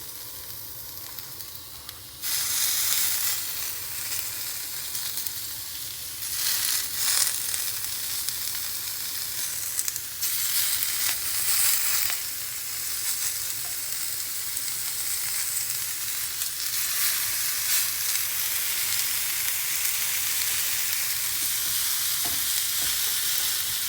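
Steak and shrimp kabobs sizzling on a hot stovetop griddle, a steady frying hiss. It gets louder about two seconds in and swells a few more times.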